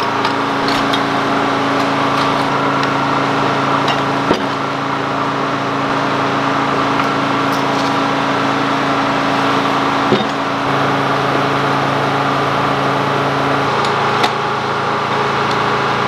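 Sawmill's diesel power unit and spinning circular blade running steadily without cutting, a loud constant hum whose note shifts slightly a couple of times. A few sharp wooden knocks from the cant being rolled over on the carriage with a cant hook.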